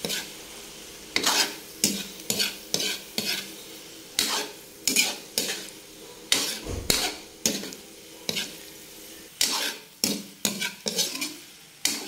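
Metal spatula stirring and scraping tofu sisig around a metal pan: repeated sharp scrapes, about one or two a second, over a steady sizzle of frying.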